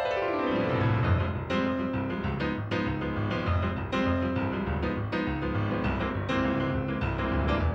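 Solo piano music. A fast downward run lands in the bass about half a second in, then a lively tune goes on over bass chords struck about twice a second.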